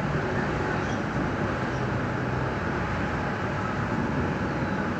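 Stuttgart Stadtbahn light-rail train running steadily along street track, heard from inside the passenger compartment: an even rumble of wheels on rails and the drive.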